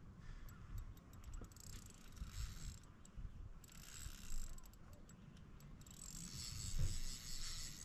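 Spinning reel being cranked in stretches while a hooked smallmouth bass is played on a bent rod, with low wind rumble underneath.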